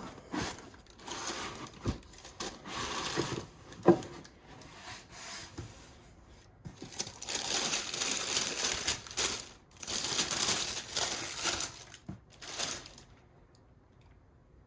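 Shoe box being opened and its wrapping handled: stretches of crinkling and rustling, with a single sharp knock about four seconds in, settling to quiet near the end.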